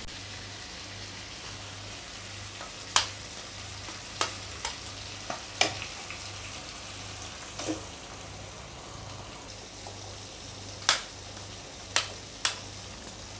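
Onion-tomato masala sizzling steadily in a metal kadai, with about eight sharp taps and knocks on the pan from the steel spatula and from eggs being cracked on it.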